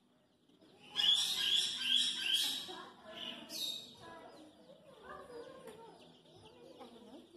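Baby chicks peeping: a run of loud, repeated high peeps starts about a second in and lasts a couple of seconds, with fainter peeping after it.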